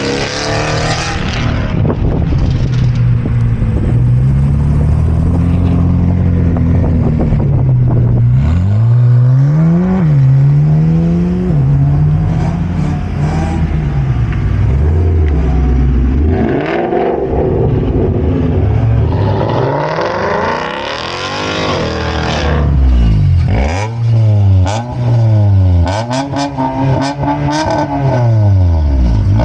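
Several cars pulling away one after another, their engines revving and accelerating hard, the pitch climbing and dropping repeatedly through the gears. Among them are a white Ford Mustang and a dark Honda Civic sedan. A few short, sharp cracks come near the end.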